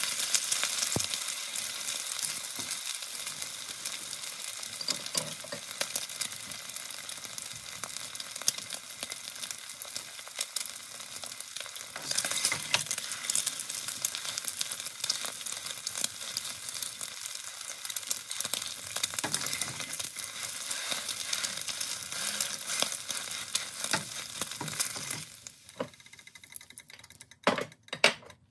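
Egg frying in hot oil in a nonstick skillet: a steady crackling sizzle full of small spattering pops. About 25 seconds in the sizzle drops away sharply, and a few sharp clicks follow near the end.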